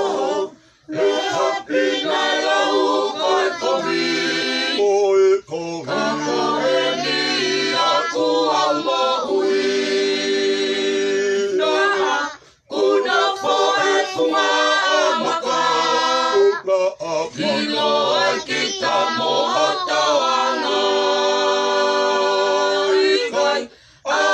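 A family group of men, women and children singing unaccompanied in harmony, holding long chords, with short breaks between phrases near the start, about halfway through and near the end.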